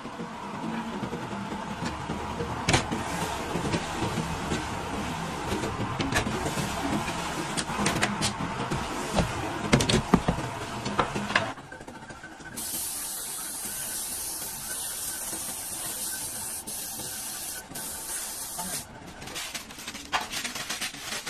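Workshop clatter: wooden strips knocking and rattling as they are handled, over a faint steady machine hum. After a sudden change about halfway through, a steady high hiss runs for about six seconds and then cuts off.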